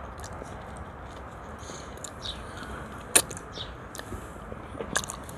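A person chewing food close to the microphone, with small wet mouth clicks and smacks. A fork clinks sharply against a plate a little past three seconds in, and again more lightly near the end.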